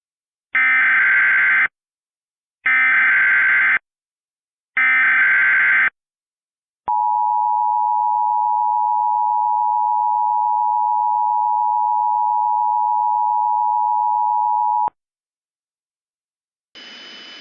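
Emergency Alert System header: three screeching data bursts of the SAME digital code, each about a second long, followed by the two-tone EAS attention signal (853 and 960 Hz) held steady for about eight seconds and cut off abruptly.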